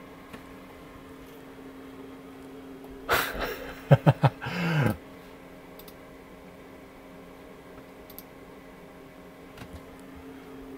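Steady low electrical hum. About three seconds in, two seconds of loud rustling and knocking break in, ending in a short sound that falls in pitch.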